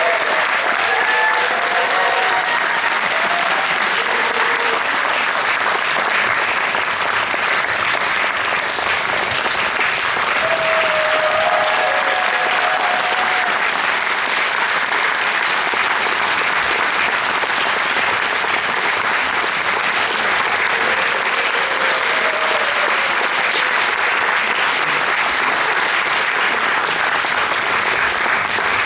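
Audience applauding steadily in a concert hall, with a few short voices calling out over the clapping.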